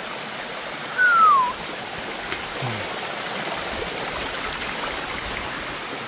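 Waterfall rushing steadily into a jungle pool, with one short falling whistle about a second in.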